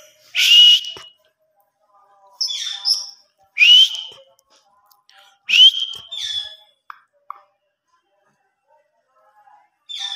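Pet parrot giving four short, loud, shrill whistling calls, several sliding up in pitch, in the first six seconds, followed by two faint ticks.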